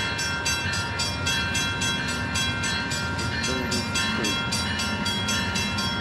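Amtrak passenger train approaching the station, with an even, rapid ringing of about five strokes a second.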